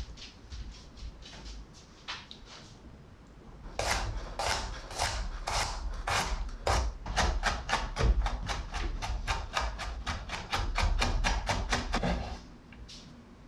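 Chef's knife cutting garlic cloves on a wooden cutting board: slicing strokes about two a second, quickening to a steady mincing chop of about four knocks a second, which stops near the end.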